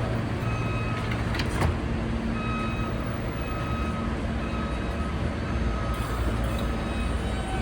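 New York City Subway train running at the station: a steady low rumble with short, fixed-pitch electrical tones coming and going, and a sharp knock about one and a half seconds in.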